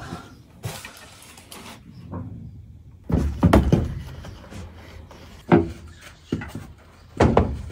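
Plywood boards knocking against the van's floor and wheel arch as they are handled and set in place: a cluster of knocks about three seconds in, then single knocks spaced about a second apart near the end.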